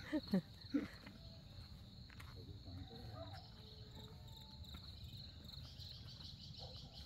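Insects chirping: a faint, steady, high-pitched pulsing trill.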